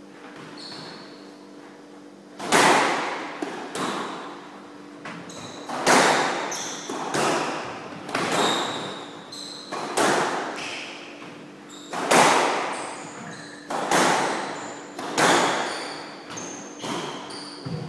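Squash rally: the ball cracking off rackets and the walls about every second, each hit ringing out in the echo of the enclosed court, starting a couple of seconds in. Short high squeaks from the players' shoes on the wooden floor come between the hits.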